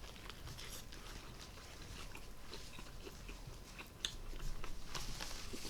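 A person chewing and biting into a stacked meat sandwich close to the microphone, a string of small wet clicks. It gets louder from about four seconds in.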